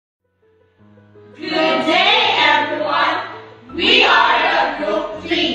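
A small group of young voices, women and one man, sounding two phrases together in unison over steady background music.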